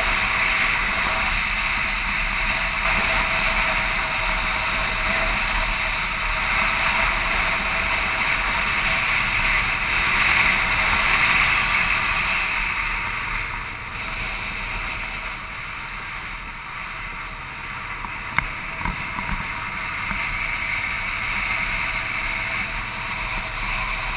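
Motorcycle engine running on the move, mostly covered by rushing wind noise on the microphone. The rush eases for a few seconds past the middle, and there is a single sharp click shortly after.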